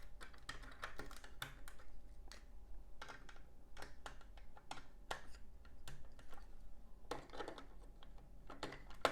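Plastic LEGO bricks clicking and tapping against each other as they are handled, pulled off and pressed back into place, in irregular quick clicks.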